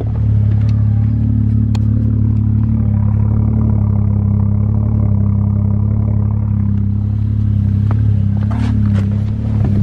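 BMW F30 335i's turbocharged 3.0-litre N55 inline-six idling steadily at the exhaust tips, freshly running a Stage 2 tune. The owner feels it may be misfiring and suspects the spark plugs.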